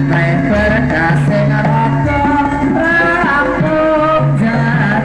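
Music: a melody over a bass line that moves in steps.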